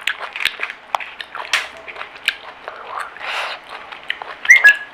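Close-up mouth sounds of someone eating pani puri: quick crunches and wet chewing of the crisp shells filled with spiced water. A short high squeak near the end is the loudest sound.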